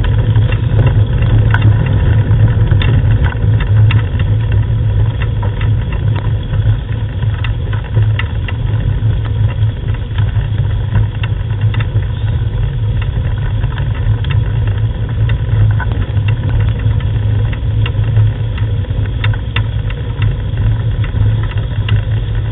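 Steady low rumble with scattered clicks and rattles from a dog-drawn training rig rolling over a gravel track behind a running sled dog team.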